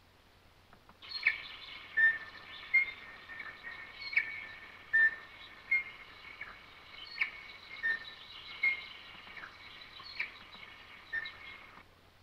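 Recorded kiwi call played back from an mp3: a long series of sharp repeated whistling calls, roughly one every second, starting about a second in and stopping just before the end.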